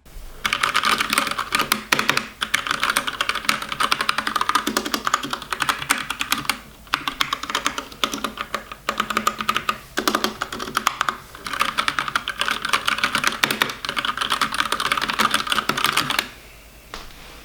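GK64 custom mechanical keyboard being typed on fast: a dense run of key clacks in bursts with short pauses, stopping about a second before the end.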